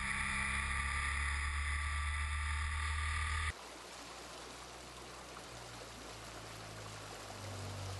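A steady droning hum of held tones cuts off abruptly about three and a half seconds in, giving way to the even rushing of a mountain creek.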